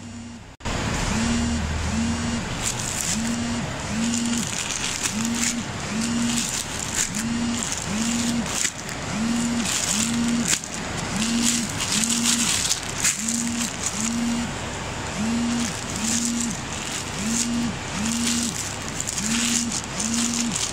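Clear plastic polybags crinkling as packaged shirts are handled, over a low, evenly pulsing hum that swells and fades about one and a half times a second.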